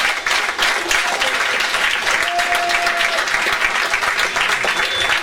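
Audience applauding and cheering after a rock song, with a brief whistle or shout a couple of seconds in.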